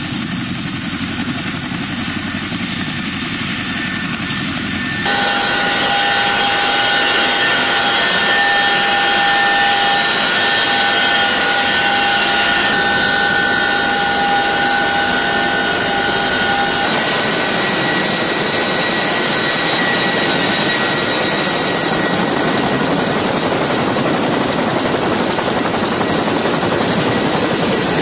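CH-47 Chinook helicopter running: its twin turboshaft engines give a steady, loud whine of several tones over dense rotor and engine noise. The sound gets louder about five seconds in.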